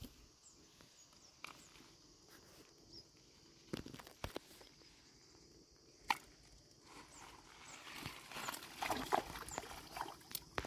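Quiet water's edge with a few small clicks, then from about eight seconds in a hooked fish splashing and thrashing at the surface as it is reeled in close to the bank.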